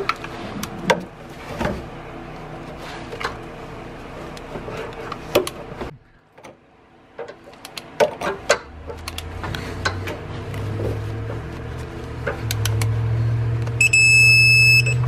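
Socket ratchet clicking in short runs on steel engine-bracket bolts. A low hum comes up in the second half, and near the end a high electronic beep sounds for about a second, the signal of a digital torque wrench reaching its set torque of 33 ft-lb.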